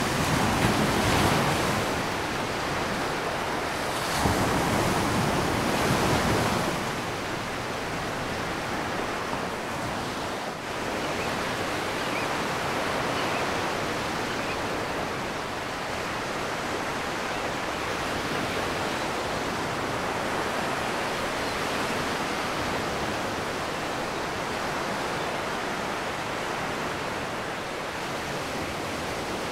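Surf washing onto a beach, with two louder surges in the first few seconds, then a steady wash of waves.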